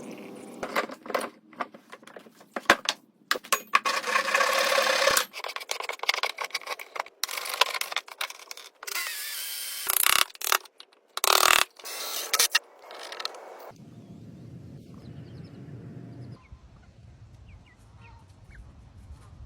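Rapid mechanical clicking, scraping and clattering in uneven bursts, stopping about two-thirds of the way through; after that a quieter low steady hum with faint ticks.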